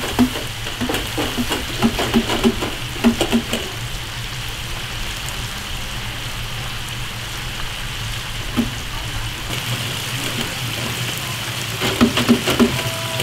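Hot oil bubbling and crackling steadily around baskets of potato fries and chicken in a commercial deep fryer, with a steady low hum underneath. A soft low pulsing, about three or four beats a second, runs through the first few seconds and returns near the end.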